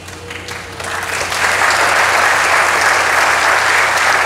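Audience applauding, building up about a second in and then holding steady.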